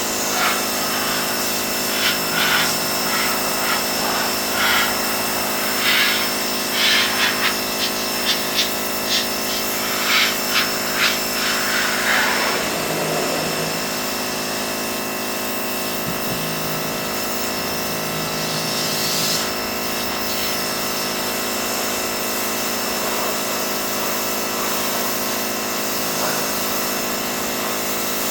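Pressure washer running steadily, with a string of brief hissy bursts over roughly the first twelve seconds before it settles into a steady drone.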